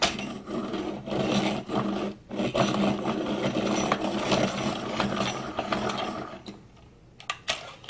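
Dahle 133 hand-crank pencil sharpener being cranked, its cutter shaving the wood and lead of a Prismacolor colored pencil: a steady grinding with a brief break a little after two seconds, stopping about six and a half seconds in. A few sharp clicks follow near the end.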